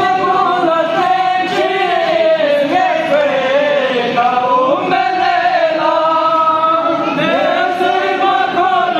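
A group of men chanting a noha, a mourning lament, together, their voices holding long, drawn-out notes that glide up and down.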